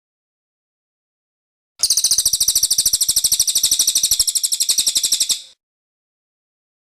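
Cililin bird singing a fast, high trill of rapidly repeated notes, beginning about two seconds in and lasting about three and a half seconds before fading out.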